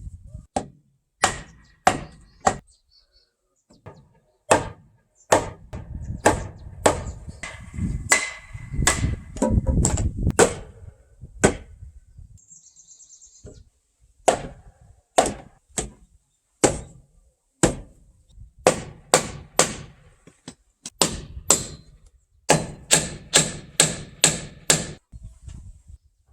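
Carpentry blows on wood: a long series of sharp, irregularly spaced strikes, with a heavier low sound under them from about six to eleven seconds in and a quick run of blows near the end.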